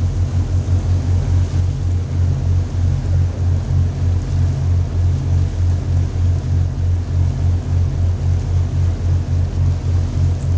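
A fishing boat's engine running steadily: a deep, evenly pulsing drone.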